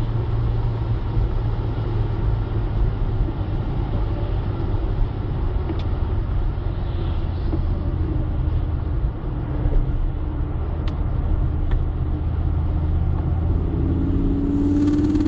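A Ford Focus ST driving at speed, heard inside the cabin: a steady low engine drone with the hiss of tyres on a wet road. The engine note grows louder and rises slightly near the end as the car accelerates.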